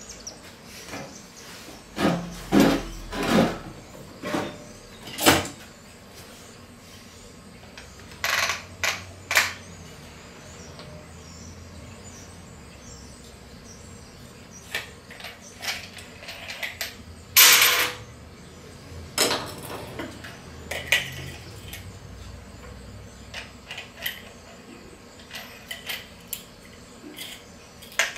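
Tools and metal parts being handled and set down on a steel workbench: scattered knocks and clatters, with one louder half-second burst about two-thirds of the way through.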